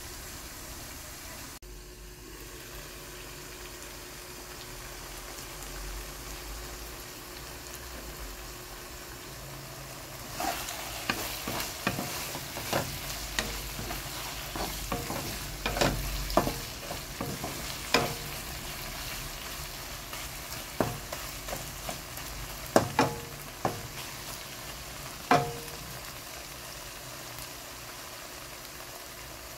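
Diced pork belly, garlic, onion and tomato sizzling steadily in a nonstick pan. From about a third of the way in until near the end, a wooden spatula stirs the pieces, scraping and knocking against the pan in irregular sharp taps.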